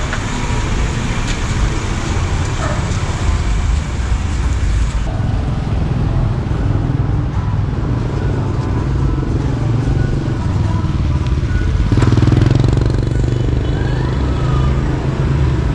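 Street traffic with motorbikes and cars passing. A louder vehicle passes about twelve seconds in.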